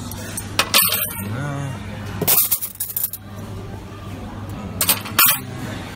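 Metal tray trolley rattling as it is pushed, with plates and cutlery clinking on the tray and three loud clatters, over the murmur of a busy cafeteria.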